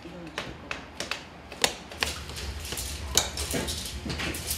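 Light, irregular clicks and taps of small hand tools on a workbench as brush hair is sorted and mixed by hand, over a low steady hum that comes in about two seconds in.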